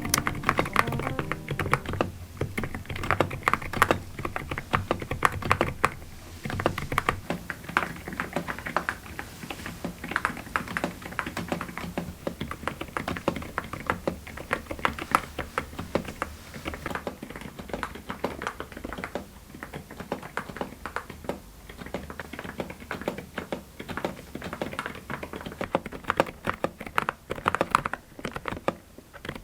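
Typing on a mechanical keyboard fitted with silent tactile Bada Sogeum (Sea Salt) switches: a fast, continuous run of keystrokes.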